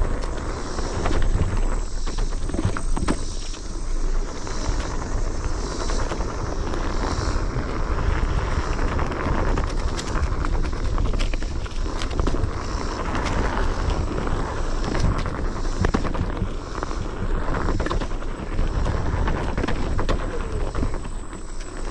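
A wheel rolling fast over a packed-dirt forest trail: a steady rumble and crunch, with many sharp knocks and clicks scattered throughout as it runs over roots, stones and twigs.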